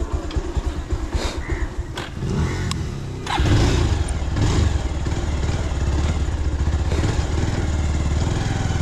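Motorcycle engine running while being ridden on a rough dirt lane, with a couple of light clicks about two seconds in. A little after three seconds the engine gets louder as the bike pulls away.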